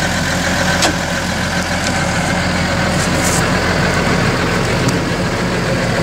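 Large farm tractor's diesel engine idling steadily, with a sharp click about a second in.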